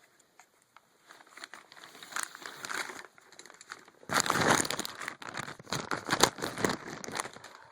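Packing material being crumpled and pulled away by hand, crinkling and crackling, softer at first and then louder and busier from about four seconds in.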